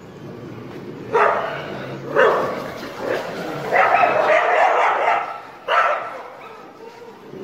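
Street dogs barking at one another in an aggressive face-off: sharp barks about a second in and again at two seconds, a longer run of barking in the middle, and another burst near the end.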